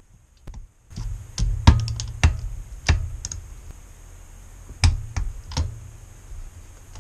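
Irregular sharp metallic clicks and knocks from a torque wrench being worked on the cylinder head bolts, with a low rumble of tool handling under them.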